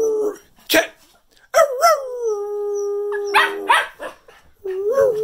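Cocker spaniel howling: a long howl that wavers at first, then holds a steady pitch for about two seconds, and another howl starting near the end, with a few short sharp noises in between.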